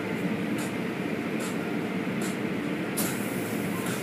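Automatic car wash running: cloth strips and spinning brushes scrubbing a pickup truck amid water spray, a steady churning wash noise with a short swishing hiss repeating about every second.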